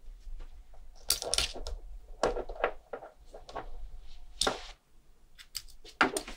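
Irregular light clicks and clinks of small metal objects tapping and knocking on a hard surface, some with a brief metallic ring, as watch parts and tools are handled.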